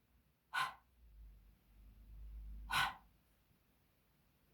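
A woman saying the voiceless phonics 'h' sound on its own: two short breathy puffs of air, about two seconds apart, the second a little louder.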